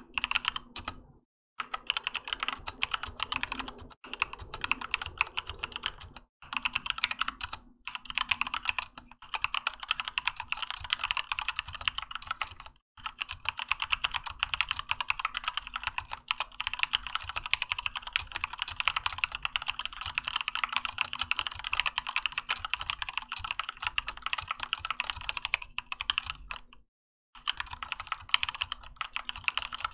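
Typing on a Keychron K2 mechanical keyboard with Gateron Red linear switches and OEM-profile PBT keycaps: fast, continuous keystrokes broken by a few short pauses.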